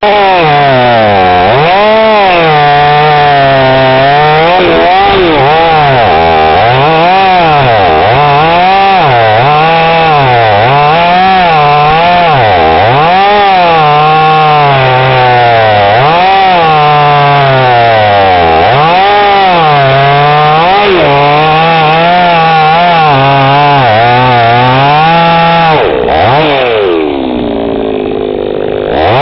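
Kentavr BP-4520N two-stroke petrol chainsaw running loud, its engine revved up and down over and over, about once a second. Near the end it falls back to a lower idle for a few seconds.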